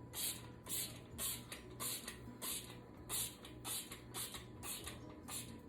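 Trigger spray bottle of foaming oven cleaner squirted over and over, a short hiss about twice a second.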